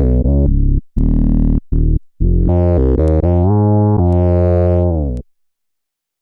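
Fender Jazz Bass played through an Electro-Harmonix Bass Mono Synth pedal, recorded direct: a phrase of synth-bass notes, a few short ones and then longer held ones, ending a little after five seconds in.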